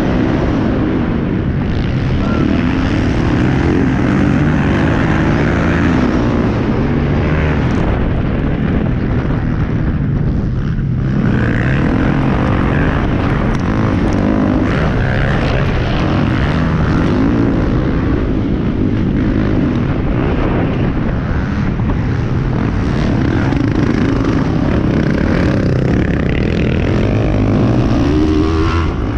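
Motocross bike engine running hard under race throttle, heard from the rider's helmet, its note rising and falling through the gears; the engine note drops briefly about ten seconds in.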